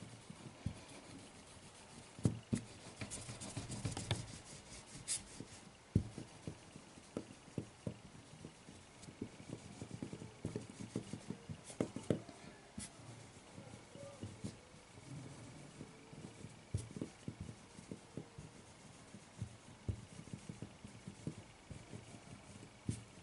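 A hand rolling Play-Doh back and forth on a hard tabletop: faint rubbing, with irregular soft knocks and taps as the palm and fingers press and lift.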